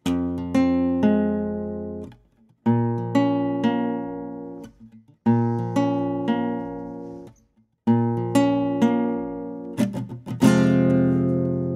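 Acoustic guitar playing a chord progression: each chord is plucked about three times, roughly half a second apart, with a new chord about every two and a half seconds. Near the end come a few quick strums and a last chord left ringing.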